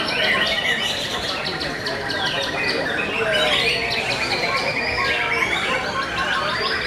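White-rumped shamas (murai batu) singing over one another in a dense chorus of rapid trills, whistles and repeated chattering notes, with one long fast trill in the middle.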